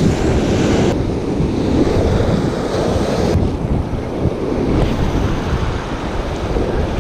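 Ocean surf washing in and breaking close by, with wind buffeting the camera microphone.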